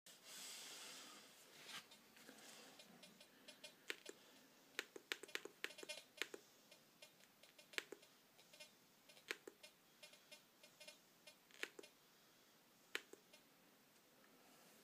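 Sharp clicks of buttons being pressed on a Fisher F75 metal detector's control box: a scattered run of quick taps, some in fast clusters, with quiet between.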